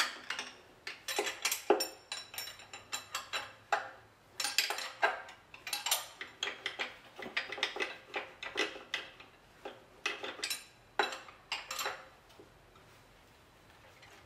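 Metal hand tools and engine parts clinking and clanking in quick irregular knocks as connecting-rod cap bolts are taken off inside an Audi 2.0 FSI engine block. It goes quiet near the end.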